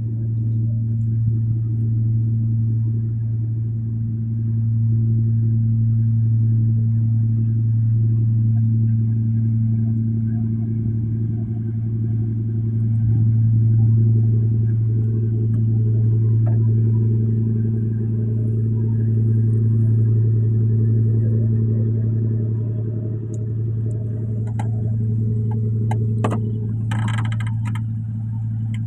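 An engine running steadily at an even, low pitch, with a few clicks and a brief rattle near the end.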